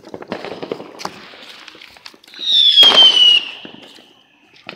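A hiss for about two seconds, then a whistling firework lets out a loud, shrill whistle that slides down in pitch for about a second, with a crack partway through.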